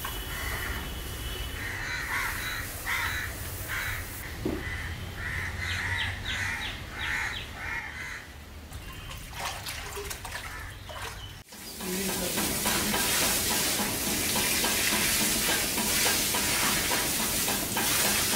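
Crows cawing repeatedly over a low hum. After a cut about eleven seconds in, water is poured from buckets onto a heap of paddy, a steady louder rushing splash, as the grain is wetted for puffing.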